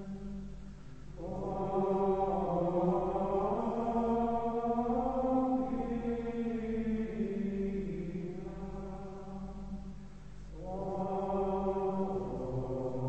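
Carthusian monks chanting plainchant in unison, male voices holding long, slowly moving notes, with short pauses between phrases about a second in and again near ten seconds in.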